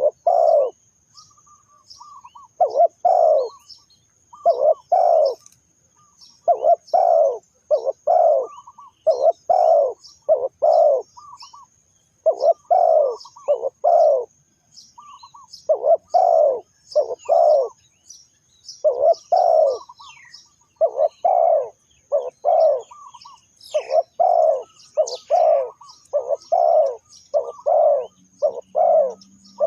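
Spotted doves cooing over and over in short phrases of two to four coos, with short pauses between phrases. Faint high chirping from small birds runs steadily above them.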